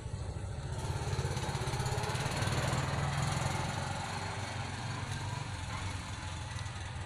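A small engine running steadily with a low hum, growing louder toward the middle and easing off near the end.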